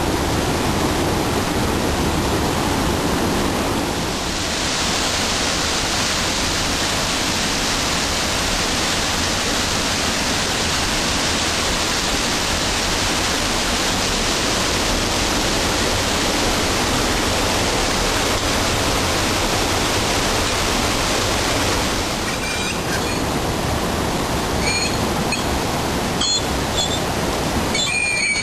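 Mountain river rapids rushing steadily over boulders, a loud continuous roar of white water. A few short high squeaks come in near the end.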